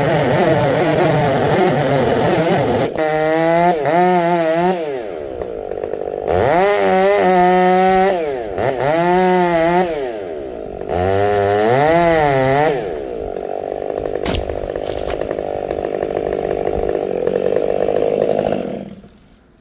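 Chainsaw running, its engine pitch rising and falling several times as it is revved or worked through wood, then running at a steadier pitch before it cuts off near the end.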